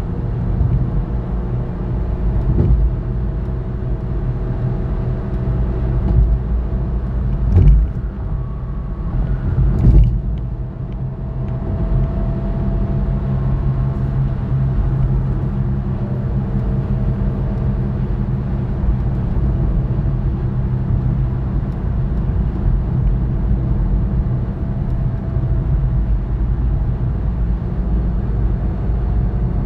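Steady road noise of a car driving at highway speed, about 60 mph, heard from inside the cabin: tyre rumble and engine drone. Two sharp thumps come about two seconds apart, roughly a third of the way in.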